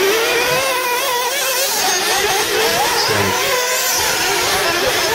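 Several 1/8-scale RC off-road buggies' small nitro engines running together at high revs, each rising and falling in pitch as the cars accelerate and ease off around the track.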